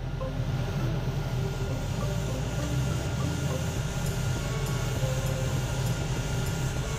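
Paint spray booth's extractor fan running steadily: a constant low hum under a rush of air.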